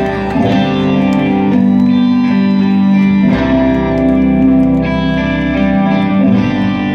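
Live rock band playing electric guitars and keyboard over drums, with sustained chords that change every few seconds.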